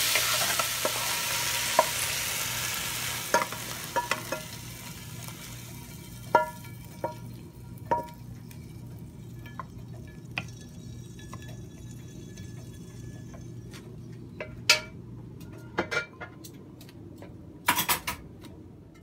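Chicken, mushrooms and basil sizzling in a nonstick wok as a wooden spatula stirs, with sharp knocks of the spatula against the pan, some ringing briefly. The sizzle dies away over the first several seconds, leaving scattered knocks and scrapes as the food is pushed out of the wok onto a plate, over a faint low hum.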